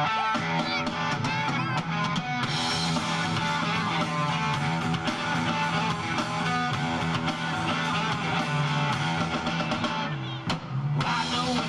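Rock band playing live: distorted electric guitars over a drum kit. The full band comes in about two seconds in, and there is a short break near the end before it picks up again.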